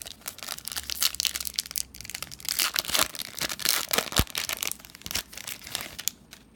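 Foil wrapper of a baseball card pack being torn open and crinkled by hand, a dense crackling that runs until about six seconds in and then stops.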